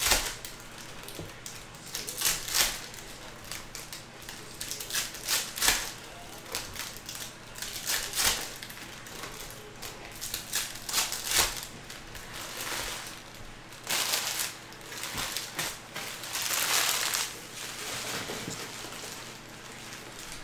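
Foil wrappers of Panini Mosaic football card packs being torn open and crinkled, in irregular bursts of crackling, with longer crinkling spells in the second half.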